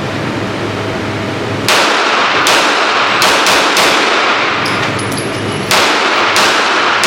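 Series of firearm gunshots on a shooting range, about nine irregularly spaced shots starting a little under two seconds in, each trailing a short echo.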